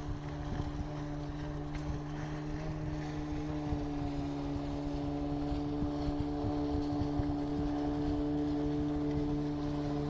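An engine running at a steady speed, a constant drone, with low wind rumble on the microphone.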